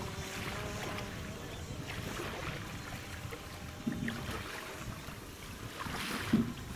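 Faint wavering whine of the AEE Condor fishing drone's motors flying out over the water, fading away in the first second or so, over wind rumble on the microphone. There is a short knock about four seconds in and a louder thump near the end.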